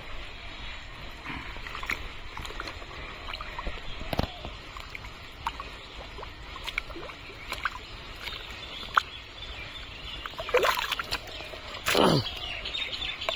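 Muddy water sloshing and splashing as hands grope through waist-deep mud for fish, with many small wet clicks and two louder splashes near the end.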